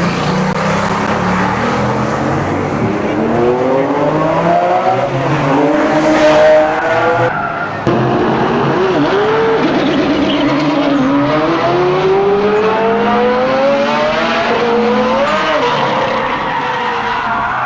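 Added car sound effects: an engine revving, its pitch rising and falling repeatedly, mixed with tyre squeal and skidding. The sound cuts abruptly about eight seconds in.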